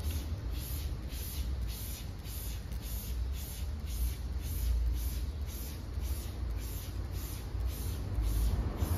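Hand trigger-spray bottle pumped over and over, about two squirts a second, misting wheel cleaner onto an alloy wheel and tyre, over a steady low rumble.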